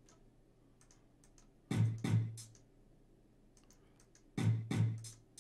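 Reason's Redrum drum machine playing a looping one-bar hip-hop beat at about 90 BPM. A pair of deep kick drum hits lands at the top of each bar, twice here, with light hi-hat ticks in between.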